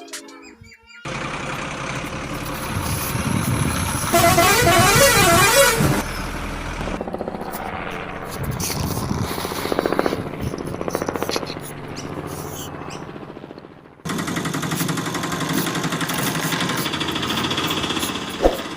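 A run of vehicle noises in several separate sections, with horn-like tones and a warbling, siren-like tone that wavers up and down from about four to six seconds in.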